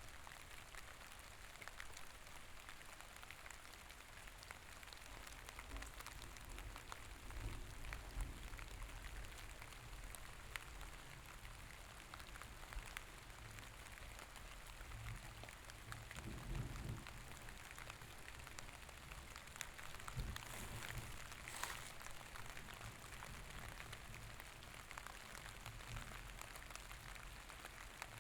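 Steady rain: a soft hiss with many small drop patters, and a few brief low rumbles along the way.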